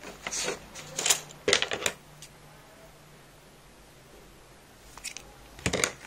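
Scissors snipping through a bundle of white yarn strands. A few short clicks and rustles of handling come first, and a quick cluster of sharp snips near the end.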